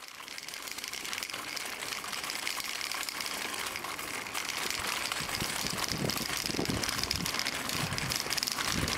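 Steady outdoor background noise: a hiss sprinkled with faint clicks, fading in at the start, with irregular low bumps joining about halfway through.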